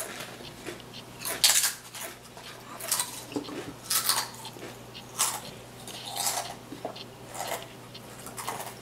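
Pringles potato chips crunching as they are chewed, in about six separate crunches, the loudest about a second and a half in.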